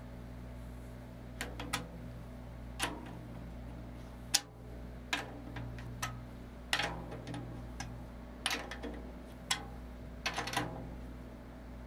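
Light, irregular taps on the top head of a Mapex Armory Exterminator 14x6.5 birch/walnut snare drum, checking tension at the lugs while it is tuned with a drum key. There are about a dozen taps, several of them leaving a short pitched ring.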